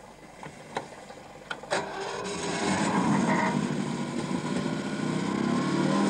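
A few sharp clicks, then a Triumph Stag 2.5-litre development engine running on a dynamometer test bed comes in about two seconds in and runs steadily, louder from about three seconds.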